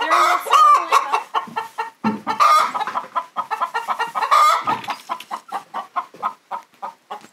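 A hen clucking over and over in quick short clucks, with a few longer drawn-out calls among them: a hen on the nest before laying, wanting to be left alone.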